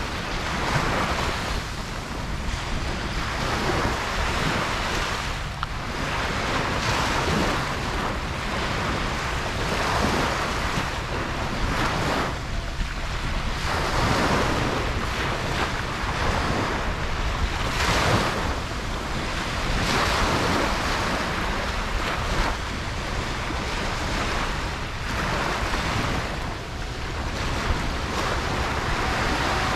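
Ocean surf breaking and washing up on a beach, a steady rush of water that surges and eases every few seconds.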